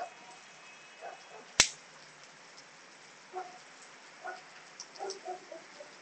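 A dog barking in short calls, a few times over several seconds, over a steady hiss of rain. A single sharp click about one and a half seconds in is the loudest sound.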